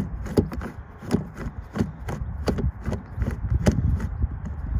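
Screwdriver turning a Torx T20 screw out of a plastic car door card, a regular run of sharp clicks about two or three a second over low rubbing and handling noise.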